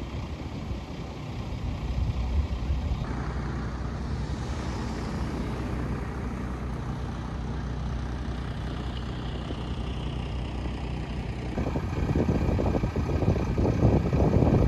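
Heavy vehicle engines running steadily as a low hum. Wind gusts buffet the microphone near the end.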